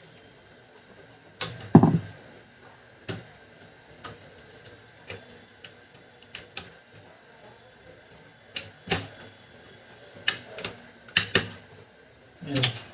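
Irregular plastic clicks and knocks as a cover is fitted back onto a Canon LBP2900 laser printer's casing, with a louder thump about two seconds in and a cluster of knocks near the end.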